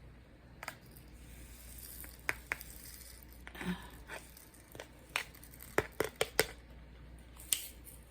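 Scattered light clicks and taps at irregular intervals, with a brief rustle about three and a half seconds in, from small craft materials being handled at a table.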